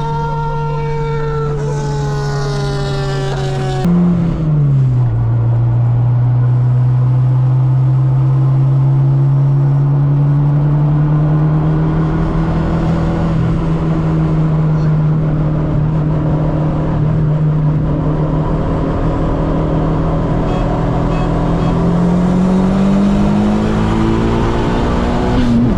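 Turbocharged Honda Civic engine running under way. Its note drops sharply about four seconds in, as after an upshift, then climbs slowly as the car pulls, rising faster near the end.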